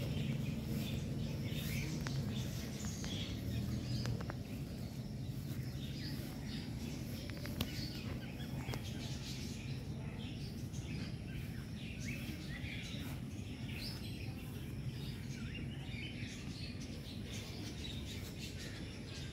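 Small birds chirping and calling outdoors in many short notes, over a steady low background rumble that eases after about four seconds. A single sharp click about seven and a half seconds in.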